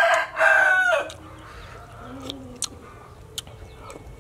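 A rooster crowing. The long crow ends with a falling note about a second in, followed by a few faint clicks.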